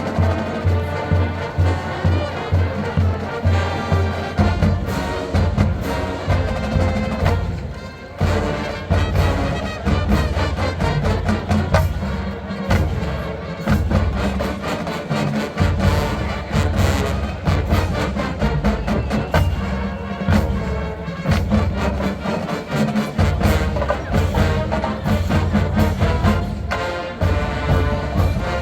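Marching band playing: brass chords over a steady drumline beat.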